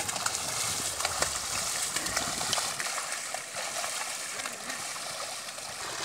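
A pair of bullocks wading through flooded paddy mud while levelling the field, with steady sloshing and splashing of water and occasional sharper splashes. The heavier low sloshing eases about halfway through.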